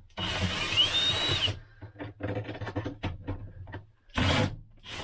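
Cordless drill fitted with a socket spinning out a bolt in a short burst, its motor whine rising, followed by a series of light clicks and rattles as the bolt and bracket are handled, and another brief burst from the drill about four seconds in.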